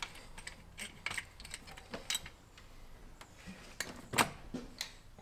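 Irregular light metallic clicks and taps as a long bolt is fitted by hand into the starter motor's mounting, with a sharper knock about four seconds in.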